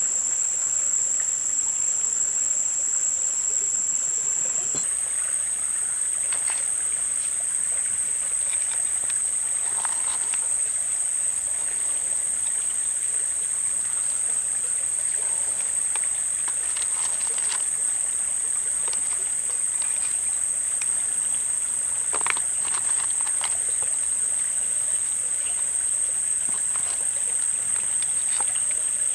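Steady high-pitched insect chorus that steps slightly higher in pitch about five seconds in. Faint rustles and light clicks come from leafy herbs and crabs being handled on a woven basket tray.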